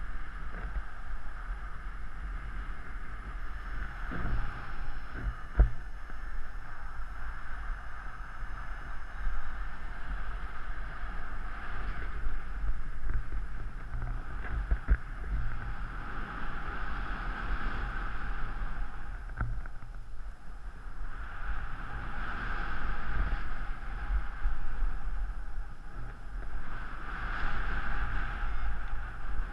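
Wind on a camera microphone from the airflow of a paraglider flight: a steady low rumble under a hiss that swells and fades every few seconds.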